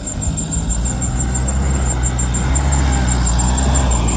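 Mahindra Thar SUV engine running as it drives over loose dirt, its steady low note growing louder as it comes close past.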